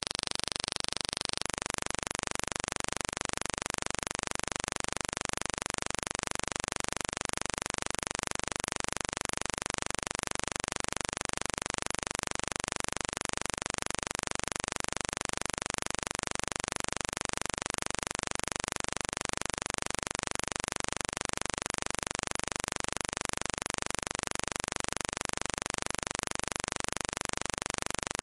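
Steady, even hiss like static or white noise, with no music or voice in it. A thin high tone sounds over it and stops about a second and a half in.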